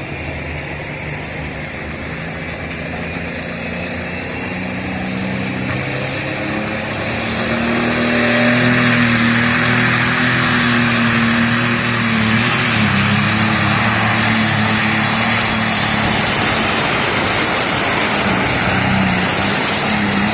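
Light pro stock pulling tractor's diesel engine, running at the line and then opened up to full power about eight seconds in, pouring out black smoke as it drags the weight-transfer sled. It stays loud and steady under heavy load through the pull.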